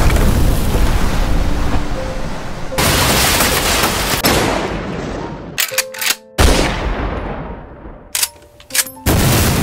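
Loud blast sound effects, a series of explosion- and gunfire-like crashes about three seconds apart, each dying away over a couple of seconds. Sharp cracks fall between the later crashes.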